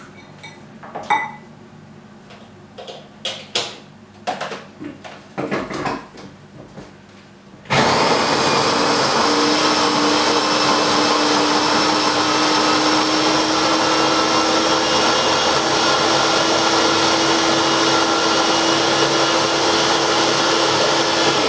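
Clicks and knocks as the motor top is fitted onto a small electric blender's bowl. About eight seconds in, the blender motor starts abruptly and runs steadily, with an even whine, blending fresh fruit for a smoothie.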